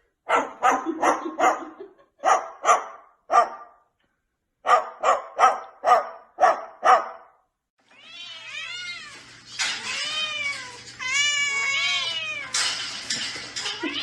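A cat meowing. First come quick, short calls in three bursts. After a brief gap come longer meows that rise and fall in pitch over a low steady hum.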